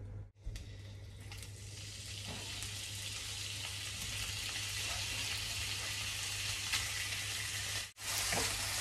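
Cubed beef sizzling in hot oil in a frying pan, the sizzle building up over the first few seconds as the meat goes in, then stirred with a wooden spatula near the end. The sound cuts out briefly twice.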